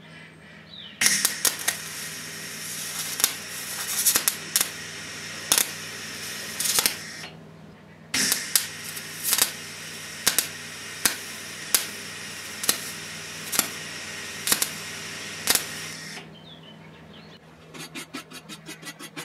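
MIG welder's arc crackling and hissing in two runs of several seconds each, with loud pops about once a second, as a nut is welded onto threaded rod; the welder reckons he was feeding too little wire. A steady low hum runs underneath, and near the end comes a fast run of clicks.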